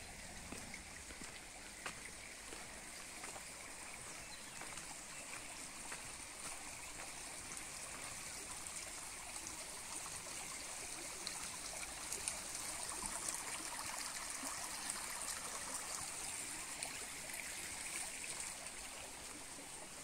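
Steady rush of running water from a small forest stream, growing louder past the middle.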